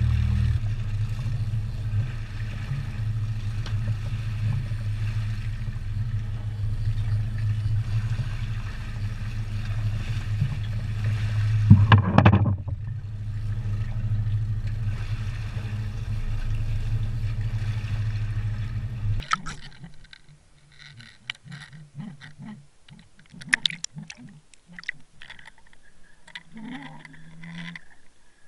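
Charter boat's motor running with a steady low hum, with a brief louder whoosh about twelve seconds in. At about nineteen seconds it cuts to the quieter sound of an underwater camera, with water gurgling and scattered clicks.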